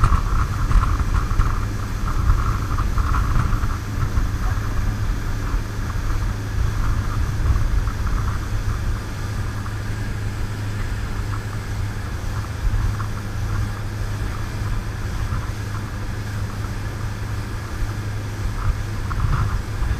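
Dive boat running at speed: a steady engine drone mixed with the churning wake and wind buffeting the microphone, a little louder in the first few seconds.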